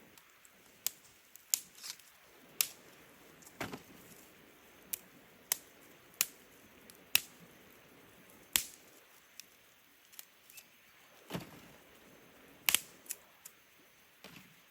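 Dry wood cracking and snapping in sharp, irregular pops, about twenty over several seconds, a couple of them duller knocks.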